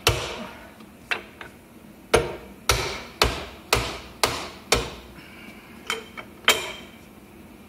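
Leather hammer striking a Bridgeport R8 mill spindle to knock its spindle bearings, spacers and dirt shield apart. About ten sharp knocks, roughly two a second through the middle, each with a brief metallic ring.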